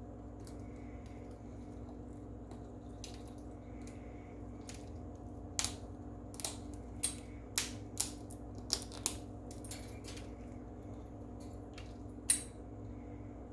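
Blue and gold macaw's beak crunching something hard: about nine sharp, separate cracks, irregularly spaced over several seconds, the loudest near the end.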